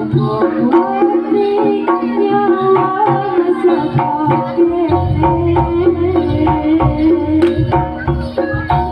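Jaranan gamelan music: kendang hand drums beating steady strokes under sustained melodic tones. A deep low booming layer joins about halfway through.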